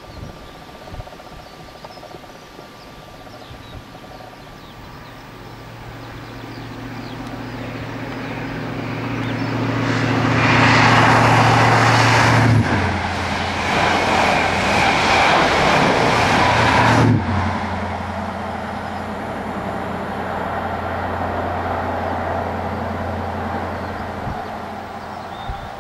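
A High Speed Train (InterCity 125) passing at speed. The leading Class 43 power car's diesel engine hum builds on approach and drops in pitch as it goes by about halfway through. The coaches then rush past, cutting off suddenly a few seconds later, and the rear power car's lower engine hum fades away.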